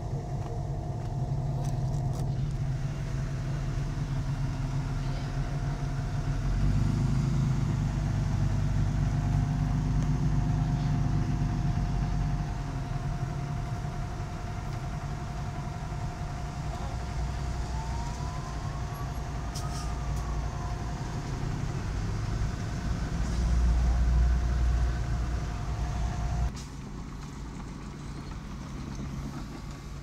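Diesel engine of heavy earthmoving machinery running steadily with a thin high whine over it, working harder and louder for several seconds. Near the end the sound drops abruptly to a quieter engine note.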